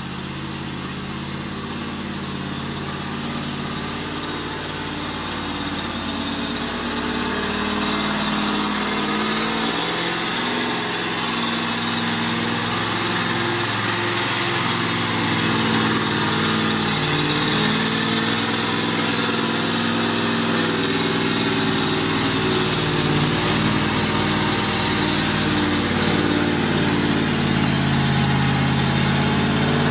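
Heavy diesel truck engine running under a heavy load of logs, its revs rising and falling every few seconds and getting louder as the truck comes closer.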